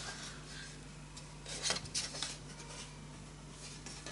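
Light rubbing and scattered clicks of the BOSS RC-505's unscrewed back cover being lifted off and handled, with a small cluster of clicks about halfway through.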